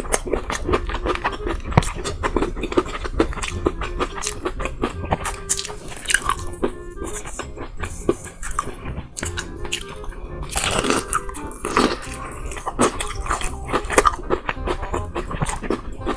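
Close-miked biting, crunching and chewing of fried chicken, a dense run of irregular crisp crunches, over background music.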